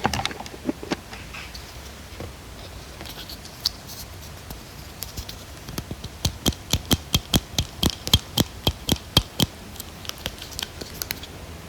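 Light-up ear pick scraping and tapping directly on an iPhone's microphone for ear-cleaning ASMR, giving close, sharp clicks and scratches. A quick run of clicks, about four a second, comes in the middle.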